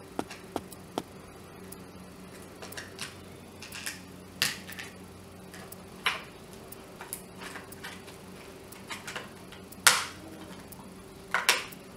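Scattered clicks and light knocks of hard plastic as the cover of an Orpat OEI-177 dry iron is handled, pressed and snapped into place, the loudest about four seconds in, near ten seconds and near the end, over a faint steady hum.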